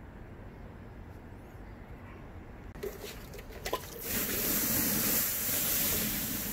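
Water from a watering can showering onto hot, burning rice-husk char in a kettle grill: from about four seconds in, a loud steady hiss of spray and sizzling as the char is quenched. Before it there is only a low background rumble, with a few clicks about three seconds in.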